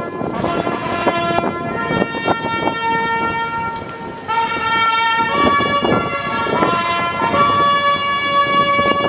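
Highland bagpipe playing a slow tune: long held notes that step from pitch to pitch, with quick grace-note flicks between them.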